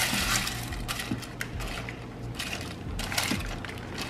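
Dry egg noodles rustling as they are stirred with a plastic spoon and pushed down by hand in the stainless steel inner pot of an Instant Pot, with irregular scrapes and clicks.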